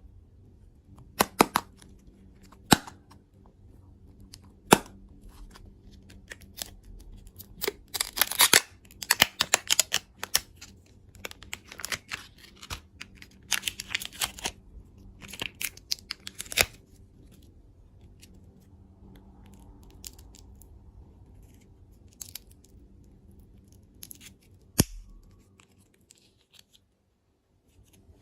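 Candy packaging being opened by hand: a few sharp clicks, then repeated bursts of plastic wrapper tearing and crinkling, and a single knock near the end.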